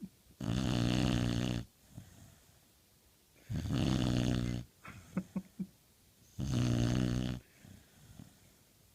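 Pit bull snoring in its sleep: three loud snores about three seconds apart, each lasting about a second, with a few short, quieter pulses between the second and third.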